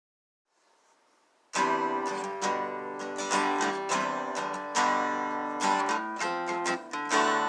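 Strummed acoustic guitar music: chords start about a second and a half in and ring on at the end.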